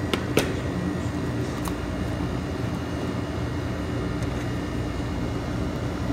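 Steady low machine hum with a faint steady high tone, with a few sharp clicks and taps in the first two seconds as gloved hands handle a cardboard biscuit box.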